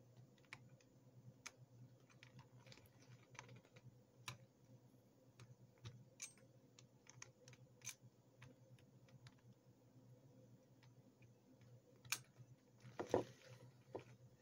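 Faint, scattered small clicks and taps of a plastic cassette shell and a wooden toothpick being handled while a pressure-pad felt is pressed into place, with a louder clatter about twelve to thirteen seconds in, over a low steady hum.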